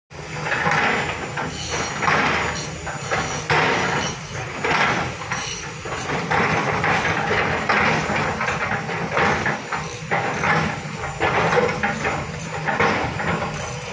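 Volvo crawler excavator's diesel engine running steadily under load while its steel bucket scrapes and knocks through loose rock, with repeated clanks and grinding surges every second or so.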